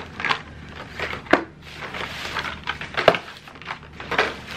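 Plastic bag and bubble wrap rustling and crinkling as blister-packed Hot Wheels cars are unwrapped, with a few sharp clicks of the plastic packs being handled and set down on the table.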